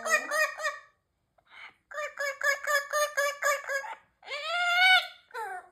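Amazon parrot calling in rapid runs of short pulsed notes. After a pause comes a longer run of fast notes, then one long call that rises and falls, and a short falling note near the end.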